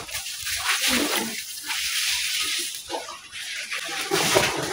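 Yellow spice water poured from a bowl into a metal wok of sliced banana stem, splashing and sloshing onto the vegetables for about three seconds, with another burst of splashing near the end.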